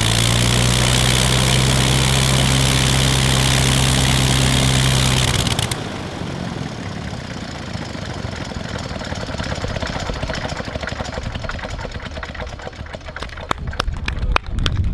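Seven-cylinder Gnome rotary engine running with a steady note, then shut off about five and a half seconds in. The engine and propeller coast down with a rushing noise and scattered clicks, which become more frequent near the end.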